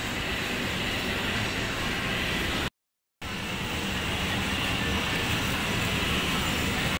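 Steady supermarket ambience: an even, dense wash of noise with no distinct events. It drops to dead silence for about half a second, roughly two and a half seconds in, then resumes the same.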